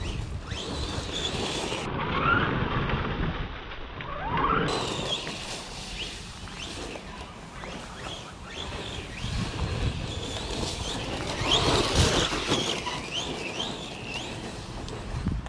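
Losi Lasernut RC truck's brushless electric motor whining up and down in pitch as the truck speeds up and slows, over a steady rushing noise. The loudest bursts of speed come about two, four and twelve seconds in.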